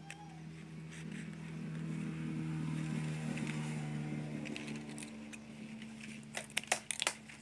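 A motor engine hum that grows louder through the middle and then fades. Near the end comes a quick series of about six sharp snips as scissors trim coconut-leaf strips.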